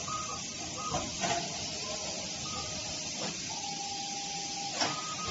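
Pouch cell assembly machinery running: a steady hiss with a few sharp clicks, the last and loudest near the end. Short faint steady tones come and go, and one steady tone holds for just over a second past the middle.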